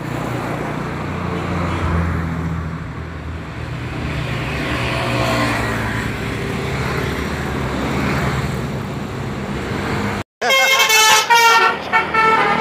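A heavy vehicle engine runs with traffic noise for about ten seconds. After a brief break, a loud multi-tone 'telolet' bus horn plays a quick tune of stepped, changing pitches.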